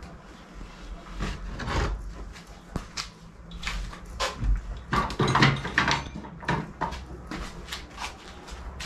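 Wooden tool holders knocking and scraping against the French cleat rails as they are handled and hung on the wall. Irregular clunks and rubs, with a busier cluster of knocks about five to six seconds in.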